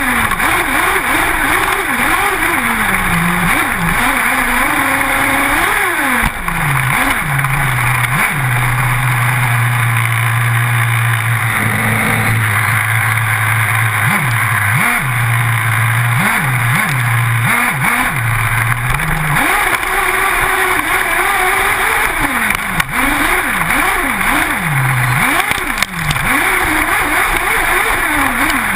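Small two-stroke engine of an RC buggy heard from a camera mounted on the car, revving up and down in quick swoops and holding a low steady note for several seconds in the middle, over a constant rushing noise.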